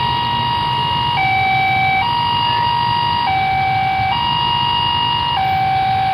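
Railway level-crossing warning alarm sounding for an approaching train: an electronic two-tone signal alternating between a higher and a lower tone, each held about a second. Under it, the low rumble of idling motorbike engines in waiting traffic.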